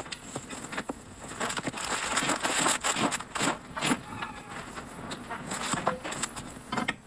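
Hand tools working on metal brake parts: irregular scraping with many sharp clicks and knocks.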